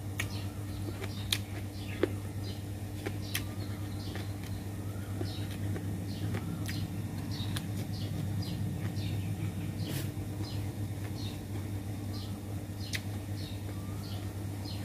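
Close-up eating: a person chewing bamboo-shoot salad, with several sharp mouth clicks. Small birds chirp over and over behind it, over a steady low hum.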